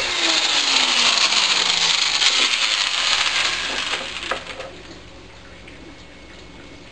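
Small lawnmower engine being spun over by an electric drill, with a loud rushing hiss and a whine that falls steadily in pitch as it coasts down over about four seconds. There are no firing pops: the engine does not catch on the HHO gas.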